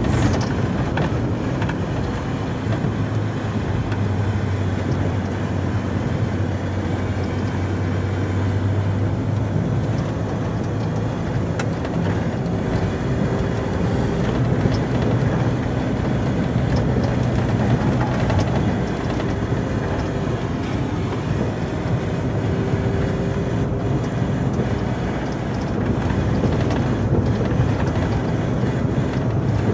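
Volvo FH 440 plow truck's 13-litre six-cylinder diesel engine running steadily, heard inside the cab as it drives and plows, with continuous low road and plow noise.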